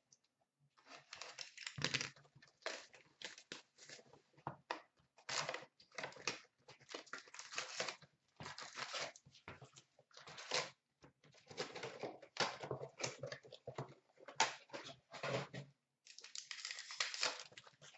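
Hands tearing open a 2016-17 Fleer Showcase hockey card box and its packs: a run of short, irregular rustles and crinkles of cardboard and pack wrappers.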